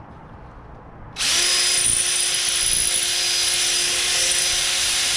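Electric drill starting up about a second in and running steadily as it drills out a rivet head, with a blunt bit that the user thinks needs replacing.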